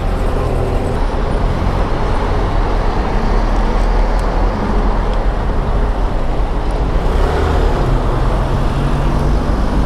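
Street traffic: a steady rumble of truck and car engines passing close by.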